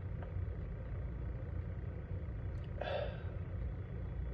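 A man takes one audible breath, like a sigh, about three seconds in, over a steady low hum.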